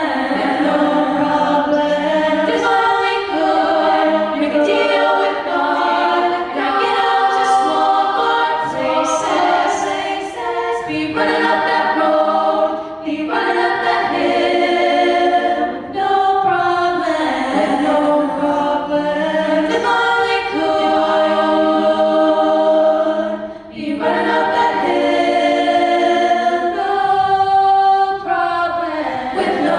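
A vocal ensemble singing a cappella in close harmony, several voice parts holding and moving chords together, in phrases separated by short breaks.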